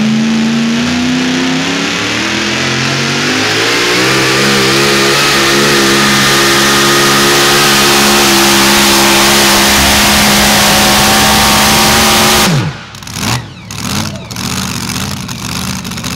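Supercharged engine of a super modified 4wd pulling truck at full throttle on a pull: the revs climb over the first few seconds, then hold high and steady. About twelve and a half seconds in the engine note drops away abruptly as the throttle comes off at the end of the pull, leaving a lower, uneven rumble.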